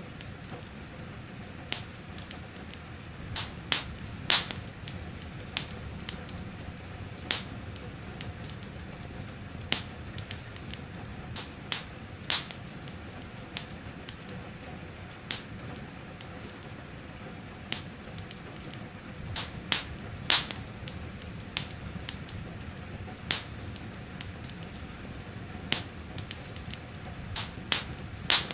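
Wood fire in a fireplace crackling, with irregular sharp pops, a few of them much louder, over a steady soft hiss of gentle rain.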